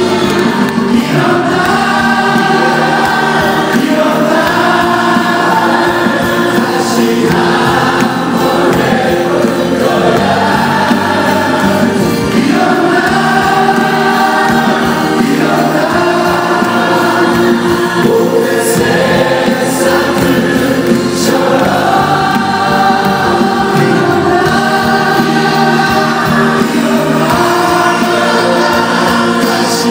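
Live group vocals: several male singers singing a Korean pop song together into microphones over a backing band.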